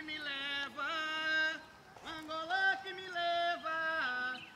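A solo voice singing a capoeira song, in two phrases of long held notes with a short break between them.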